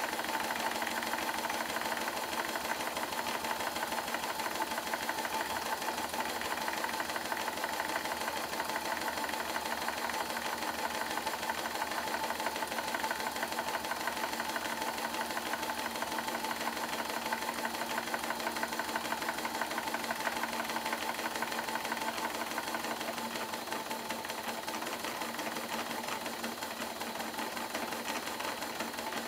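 Bassett-Lowke model traction engine running steadily on compressed air, its cylinder exhausting in a rapid, even beat with light mechanical clatter from the motion. The slight clunk is from a big end bearing not yet tightened. It gets a little quieter in the last few seconds.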